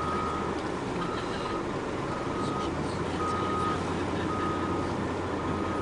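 Vehicle reversing alarm beeping about once a second with a single steady tone, six beeps, over the low drone of a diesel engine running.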